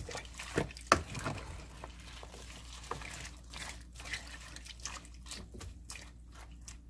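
Wooden spoon stirring sliced radish and cabbage in kimchi brine: irregular liquid splashes and sloshes with small clicks, the sharpest about a second in.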